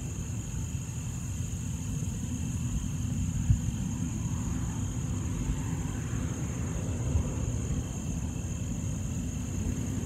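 Farm harvest machinery running steadily, with an irregular low rumble and a few dull thumps, the sharpest about three and a half seconds in. A faint steady high whine sits over the rumble.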